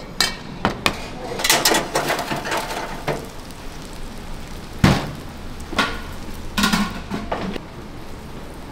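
Dishes and utensils clattering: scattered sharp knocks and clinks, the loudest about five seconds in.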